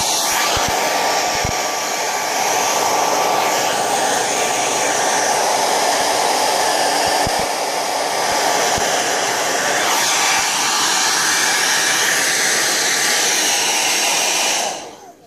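Handheld hair dryer blowing steadily, switched off near the end.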